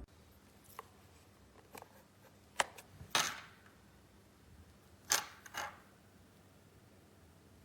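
Handling noises: a few sharp clicks, the two loudest about two and a half and five seconds in, each followed by a short scraping swish, with fainter ticks between.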